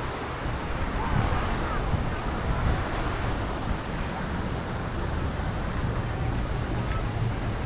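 Wind buffeting the microphone on an open promenade, an uneven low rumble with a hissing haze above it, under faint chatter of passers-by.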